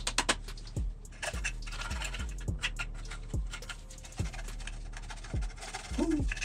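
A hand file rasping across the wooden stock of a muzzleloader kit in short, uneven strokes as excess wood is taken off for fitting. Under it runs background music with a deep bass kick, falling in pitch, about once a second.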